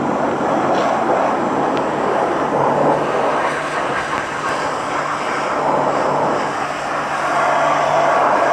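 Coin-operated car-wash pressure washer spraying a steady high-pressure jet of water, with the low hum of its pump underneath, rinsing degreaser off a motorcycle chain.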